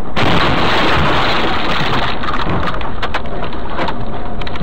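Car crash heard from inside the car as it leaves the snowy road: a sudden loud rush of crunching noise, which eases after about two seconds into a run of knocks and scraping.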